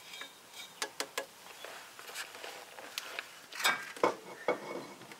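Handling noises as a bare cast-iron small-block Chevy cylinder head is lifted and held over the engine block: scattered light clicks, knocks and rustling, the two loudest knocks about three and a half and four seconds in.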